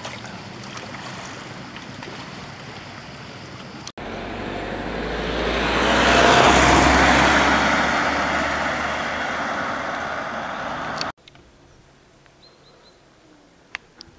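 A car passing close and driving away, its tyre and engine noise swelling to a peak and fading slowly. Before it comes a steady hiss of wind and waves, and after it a quiet stretch with a couple of faint clicks.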